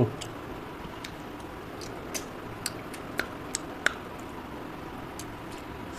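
Soft, irregular clicks and wet smacks of a person eating curry gravy with his fingers, about a dozen of them spread through the seconds.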